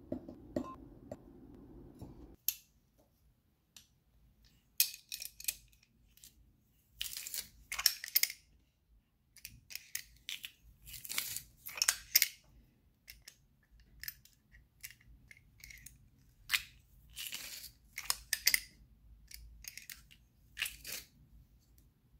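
Peeled garlic cloves dropped one at a time into a glass measuring cup, each landing as a short, sharp clink and rattle against the glass, about a dozen in all.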